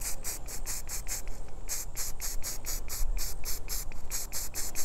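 Aerosol can of chalk spray paint spraying in rapid short hissing bursts, about four a second, with a short break about one and a half seconds in.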